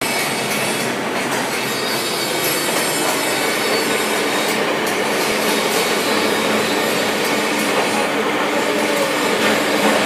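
Steady rushing workshop noise that holds at an even level throughout, with a few faint clicks.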